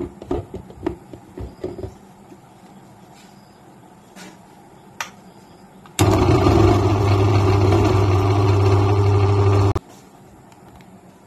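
Clatter of the steel jar being fitted onto a Philips mixer grinder, then the mixer grinder's motor switched on about six seconds in, running steadily for about four seconds as it grinds boiled chicken pieces, and cutting off suddenly.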